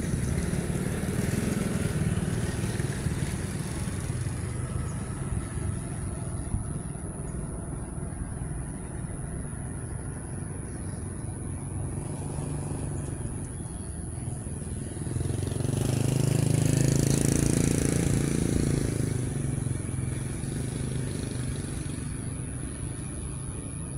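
Road traffic: a motor vehicle engine rumbling steadily, with one vehicle passing louder about two-thirds of the way through and then fading.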